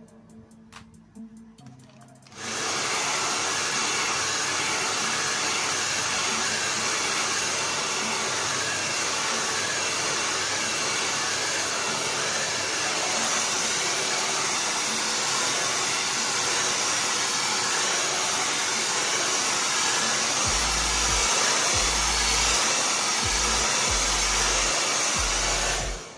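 Handheld blow dryer blowing on hair: it comes on suddenly about two seconds in, runs with a steady loud rushing hiss, and cuts off just before the end.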